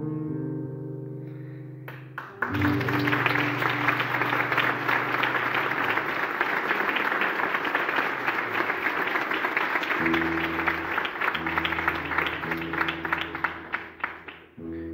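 Audience applause breaks out suddenly about two seconds in, as the last held notes of a song on guitar and backing music fade. The clapping continues steadily until near the end, with low sustained music notes still sounding beneath it.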